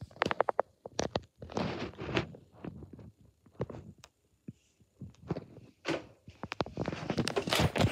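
Irregular footsteps and light knocks mixed with rustling and handling noise from a phone being carried and swung about by hand.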